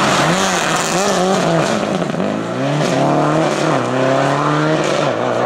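Subaru Impreza rally car's turbocharged flat-four engine working through a loose corner: the revs swing up and down on and off the throttle, then the engine accelerates away, rising and dropping back with an upshift about once a second.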